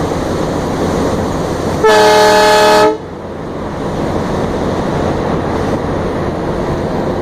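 Diesel locomotive's horn sounding one blast of about a second, heard very loud from on board, over the steady running noise of the engine and wheels.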